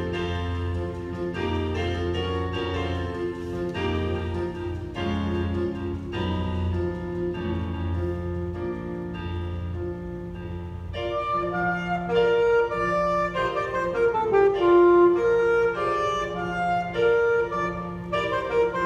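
Instrumental hymn: keyboard accompaniment plays sustained chords over a low bass line, then an alto saxophone enters about eleven seconds in, playing the melody in long held notes over the chords.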